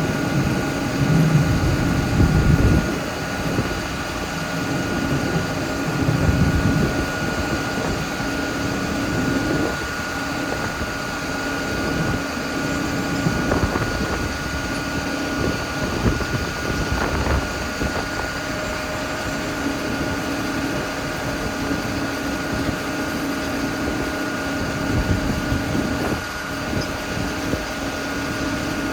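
Grimme Varitron 270 self-propelled potato harvester running steadily while lifting potatoes, with a constant whine over the engine and low rumbling swells in the first few seconds.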